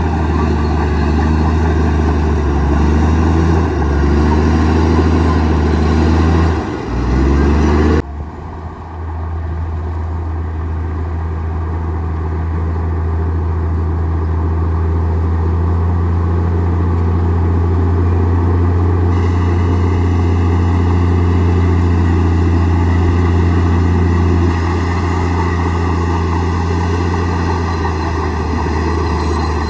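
Komatsu D58E bulldozer's diesel engine running steadily at working revs. A little over six seconds in, the engine briefly drops in pitch and level, as under heavy load, then settles back to a steady run.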